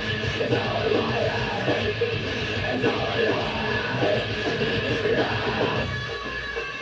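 Background rock music with distorted guitar.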